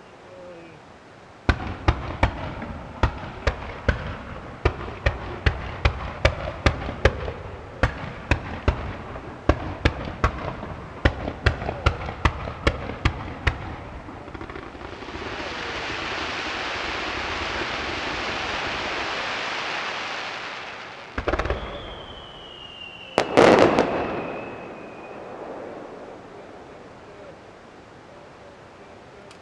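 Fireworks display: a rapid volley of aerial shell bursts, two or three bangs a second for about twelve seconds. Then comes a steady hiss lasting several seconds, and near the end a single louder bang, crossed by a whistling tone that slides slightly down.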